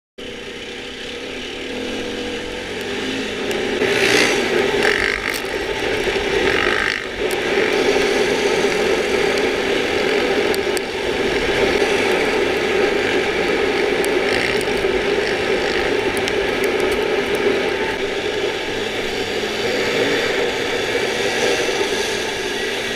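Dirt bike engine running hard at riding speed, heard from on the bike. It gets louder over the first four seconds, then holds a steady note.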